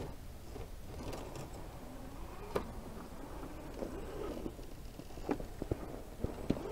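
Axial SCX10 II scale RC rock crawler climbing over rock: its electric motor and gears whine, rising and falling in pitch with the throttle. Sharp clicks and knocks of tyres and chassis on the rock come about two and a half seconds in and several more times near the end.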